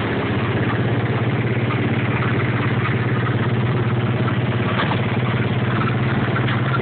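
Go-kart engine running steadily, with an even low hum, while the kart drives along the track.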